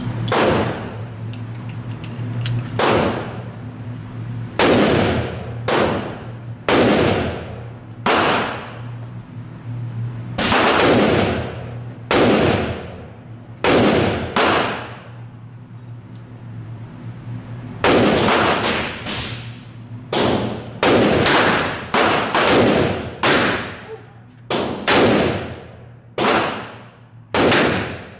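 Handgun shots on an indoor range, each crack ringing off the walls: about twenty shots at irregular intervals, sparse at first and coming more quickly in the second half.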